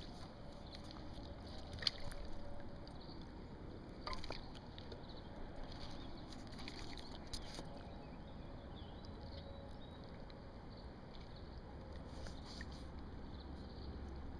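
River water sloshing and lapping at the shore, with a few faint clicks and knocks.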